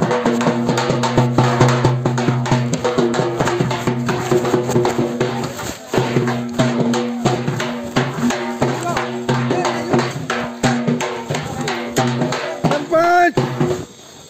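Halgi frame drum beaten with sticks in a fast, dense rhythm, over a held low note.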